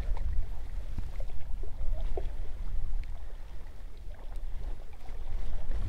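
Low, uneven rumble of wind buffeting the microphone, with a few faint clicks and rustles as gloved hands work a jig hook out of a crappie's mouth.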